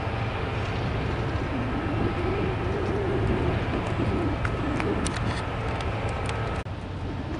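Birds calling with low, wavering calls over a steady low rumble, with a few sharp clicks near the middle.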